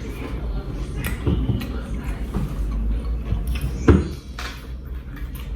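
Close-up eating sounds: chewing, with scattered clicks and a sharp knock about four seconds in.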